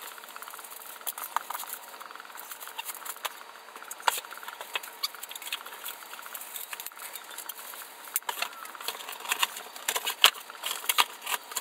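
Plastic wrapping and bubble wrap crinkling and cardboard being handled as a boxed beach cart is unpacked, with many sharp clicks and light metal clinks from the cart's frame tubes, busiest near the end.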